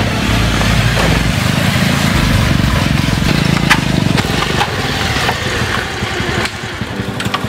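Motorcycle engines running at low revs and idling, a fast even pulsing of the exhausts, easing off a little near the end.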